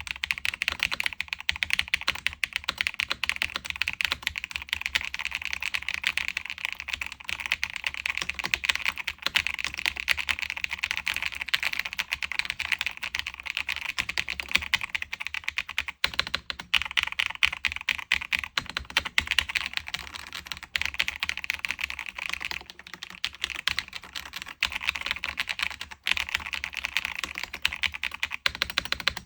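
Typing on an Akko 5075B Plus mechanical keyboard fitted with pre-lubed Akko Creamy Yellow U1 linear switches and Orange on Black keycaps: rapid, dense key clacks, with a few short pauses.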